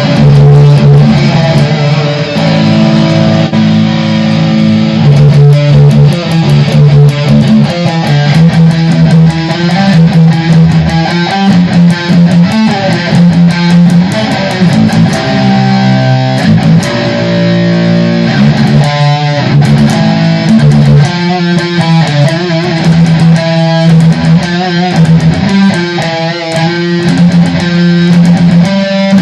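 Electric guitar music: held low notes and picked melodic phrases, with bass underneath.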